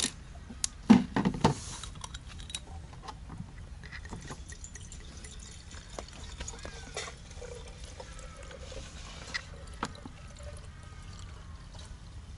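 Soju poured from a glass bottle into a narrow-mouthed flask, a steady trickle of liquid. A few loud knocks come in the first second or two.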